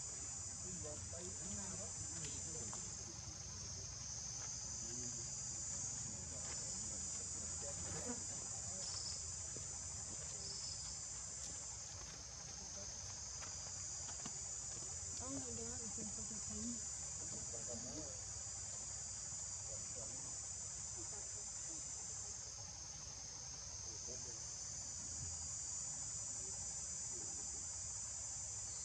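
A steady, high-pitched insect chorus that dips briefly now and then.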